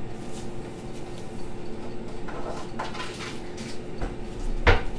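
Kitchen handling sounds as a small cup is taken down from a cupboard shelf: a few soft clicks and knocks, with one sharp knock near the end. A steady low hum runs underneath.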